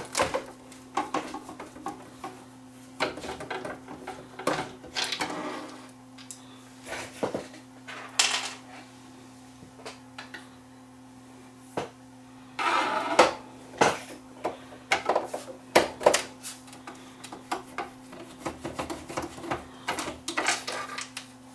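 Screws being taken out of a plastic boombox cabinet with a screwdriver: scattered clicks, scrapes and rattles of the tool and the case being handled. The longest rattle comes about 12 seconds in. A steady low hum runs underneath.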